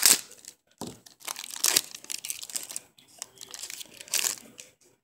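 Foil wrapper of a Donruss Optic football card pack being torn open and crinkled by hand, in several spells of crackling: the loudest right at the start, more from about a second in, and another near the end.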